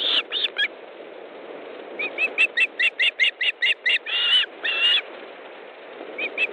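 Osprey calling: a few whistled calls at the start, then a rapid series of short, sharp whistled notes, about five a second, followed by two longer drawn-out calls. Another fast series starts near the end, over a steady low hiss in the background.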